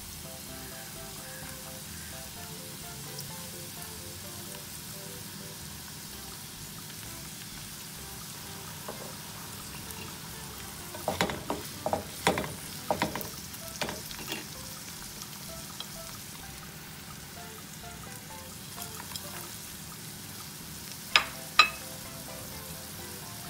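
Carrot and orange-peel strips frying in a nonstick pan with a steady sizzle. About halfway through, a spatula stirs and scrapes them in a run of clicks. Near the end come two sharp knocks, the loudest sounds.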